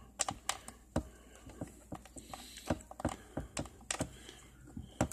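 Quick, irregular plastic clicks and taps, a few a second, from buttons being pressed on a RadioShack 12-262 weather radio during its first setup.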